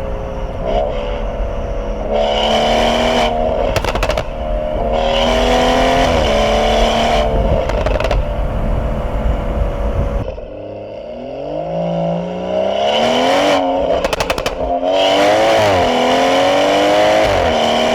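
BMW 440i's B58 turbocharged 3.0-litre inline-six running through a catless downpipe, accelerating hard in repeated pulls. The pitch rises and then drops at each shift, with brief sharp crackles between pulls.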